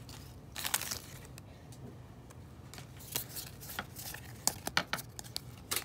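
Pokémon trading card booster pack being handled and opened: foil wrapper crinkling and cards shuffled. There is a short rustle about half a second in and a scatter of sharp clicks and snaps, several close together near the end.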